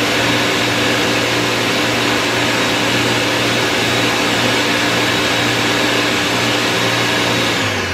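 Ninja countertop blender running steadily, pureeing cooked broccoli, cauliflower and broth into a smooth soup: a loud motor whir over a low hum. Near the end it winds down, its pitch falling as it is switched off.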